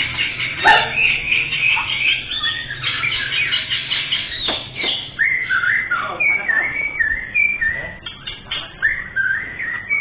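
Many caged songbirds chirping and calling at once. First comes a dense run of quick high chirps, then from about halfway repeated short whistled phrases that drop in pitch.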